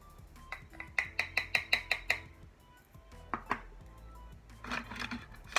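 Hard clicks and clinks of a loose-powder jar being handled: a quick run of about ten clicks in just over a second, then a couple more a little later and another cluster near the end.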